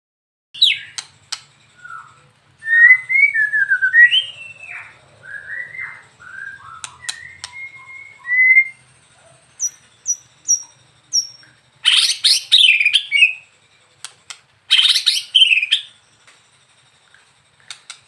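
White-rumped shama singing. It runs through varied fluty whistled phrases that slide up and down, then four short high notes, then two loud harsh rattling bursts.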